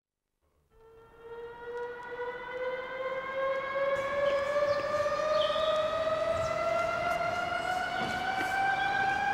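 A siren winding up: one slow, steady rise in pitch that fades in just under a second in and grows louder over the next few seconds.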